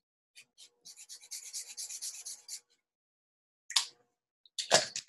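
Green Sharpie permanent marker scribbling on paper: a quick run of short back-and-forth coloring strokes, about five a second, then two louder rubs near the end.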